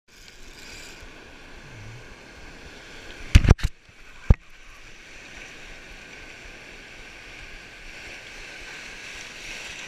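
Surf washing steadily against a rocky shore. Two or three loud sharp knocks come about three and a half seconds in, and one more a second later.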